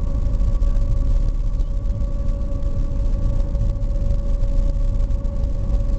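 SeaBus passenger ferry under way, its engines running steadily: a continuous low rumble with a constant whine on top.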